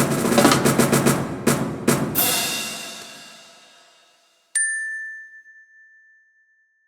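Orchestral music: a loud, dense passage of rapid drum hits under a bright cymbal-like wash that dies away over a couple of seconds. Then, after a moment of silence, a single high glockenspiel-like note rings out and fades.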